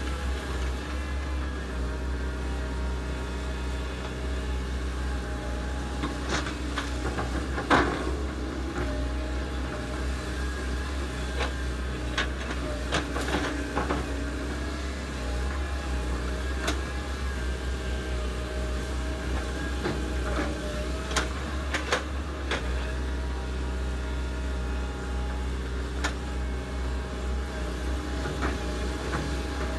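Komatsu PC130 hydraulic excavator's diesel engine running steadily as it digs, with scattered clanks and knocks, the loudest about eight seconds in.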